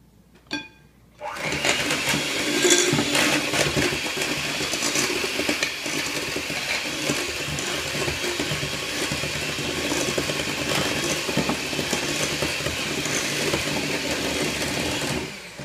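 Electric hand mixer beating buttercream frosting of butter and powdered sugar in a glass bowl, switched on about a second in and running steadily at a loud, even pitch until it cuts off right at the end. A short click comes just before it starts.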